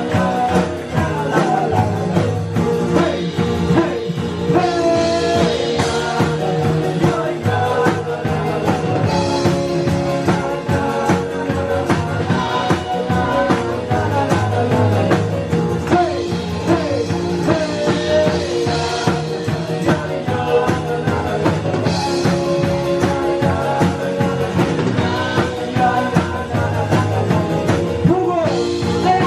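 Live acoustic rock song: strummed acoustic guitar and a singing voice, with a tambourine shaken in time from the crowd.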